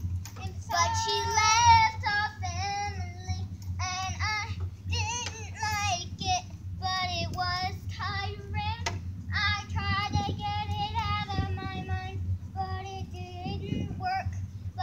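A young girl singing a song in a high voice, with long held notes that waver in pitch and short breaks between phrases.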